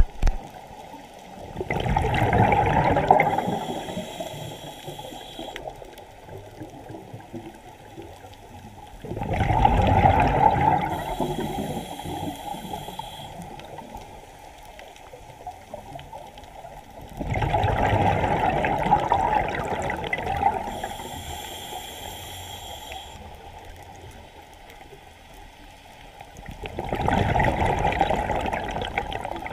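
Scuba diver breathing through a regulator underwater: a rush of exhaled bubbles comes four times, about every eight seconds, each lasting a few seconds, with a thin high hiss partway through three of them.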